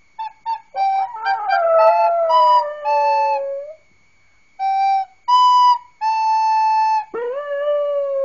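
Recorder played in short, steady notes and a few held ones, with a dog howling along: a long howl sliding slowly down in pitch under the first run of notes, and a new howl rising sharply near the end.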